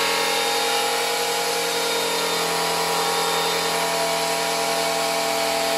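Straight die grinder with an abrasive disc running at steady high speed, a constant whine over a hiss of the disc working rust and paint off the edge of a car's wheel arch. It cuts off right at the end.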